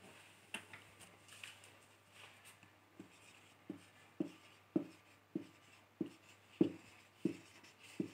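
Marker pen writing digits on a whiteboard: a short tap of the pen on the board with each digit, about nine in a row just over half a second apart, after a few faint scrapes and clicks in the first seconds.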